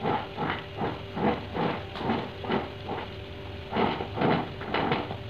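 Metal offset spatula spreading thick chocolate ganache over a cake, a wet smearing and scraping sound in repeated strokes, about two or three a second.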